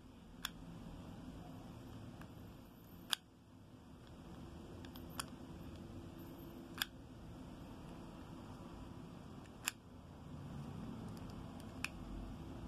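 Sharp plastic clicks, about six of them a couple of seconds apart, from a Battle Armor Skeletor action figure as a thumb presses its chest and the rotating armor drum clicks round to its next damage face.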